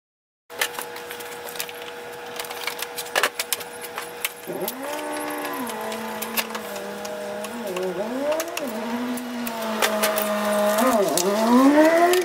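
Scattered clicks and rattles of tools on metal parts. From about four seconds in comes the whine of a cordless power tool's motor, speeding up and slowing down as the trigger is worked to run out the bolts of the hood latch and radiator centre support. It is loudest near the end.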